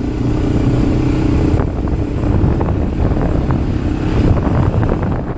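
ATV engine running steadily while riding, with scattered rattles and knocks from the machine over the trail.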